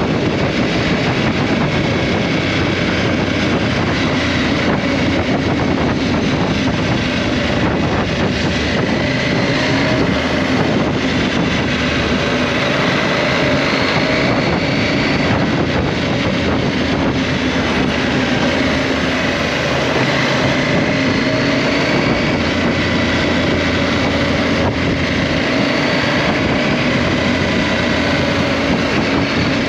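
KTM 790 Adventure's parallel-twin engine running steadily under way, its note drifting gently up and down in pitch, mixed with wind and road noise.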